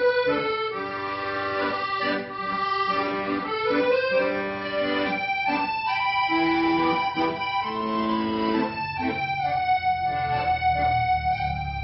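Accordion playing a melody in long held notes over bass and chord accompaniment.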